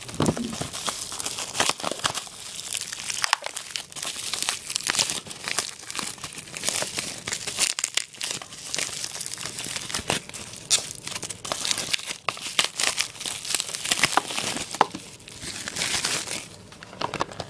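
Plastic wrapping on a sealed trading card box crinkling and tearing as it is pulled off by hand: a dense run of sharp crackles that thins out near the end.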